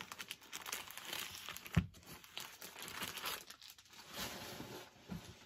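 Plastic wrapping on a comic book pack crinkling and tearing as it is pulled open by hand, with a single thump about two seconds in.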